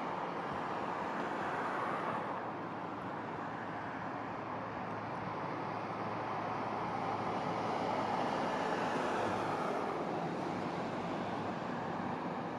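Heavy trucks of a slow convoy running toward the microphone, among them a tractor-trailer hauling a railway car; a steady road noise with a low engine hum under it, swelling a little about eight seconds in.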